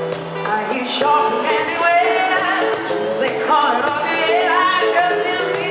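Live pop music from a duo: a sung melody line over a steady accompaniment.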